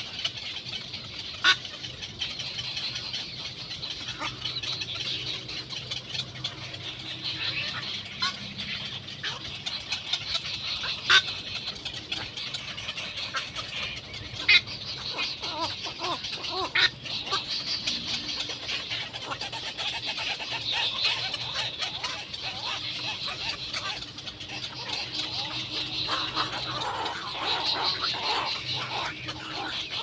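Egret nestlings begging continuously while being fed: a steady, harsh, high chattering, with a few sharp clicks scattered through.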